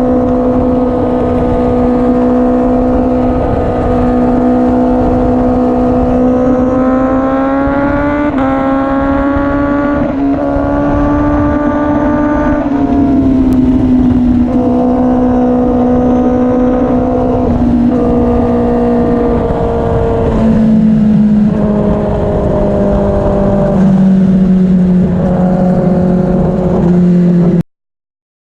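The 2017 Honda CBR1000RR SP1's inline-four engine running through a Yoshimura slip-on exhaust while riding, over a low rush of wind and road noise. The note rises and falls with the throttle, with several short breaks like gear changes, and settles lower in pitch in the later part. It cuts off suddenly near the end.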